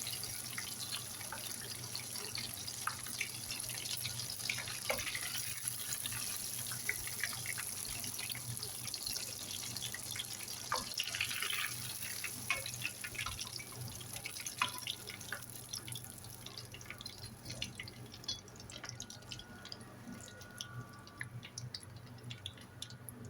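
Chicken pieces deep-frying in hot cooking oil: a steady sizzle full of small pops and crackles, easing somewhat over the last several seconds.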